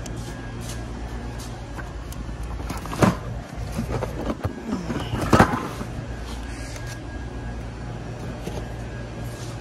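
Cardboard boxes being handled and shifted, with two sharp knocks, about three seconds in and again about five seconds in, and rustling between them, over a steady low hum.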